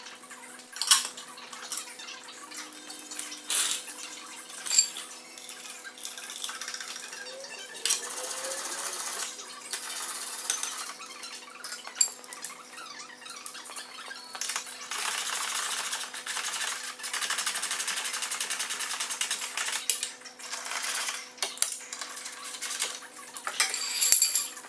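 Mechanic's hand tools working on an engine: scattered metal clinks and knocks, with stretches of fast, even clicking, over a faint steady hum.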